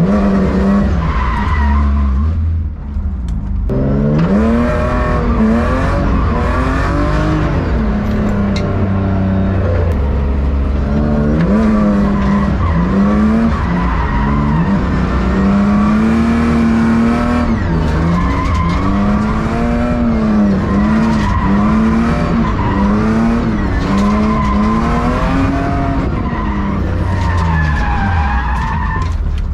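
BMW E36 engine revving up and falling back again and again while the car drifts, with tires skidding and squealing. It runs loud, with only half of its exhaust fitted. The engine drops off briefly about three seconds in.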